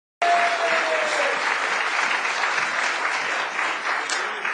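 Audience applauding, dense clapping that starts abruptly and thins out toward the end.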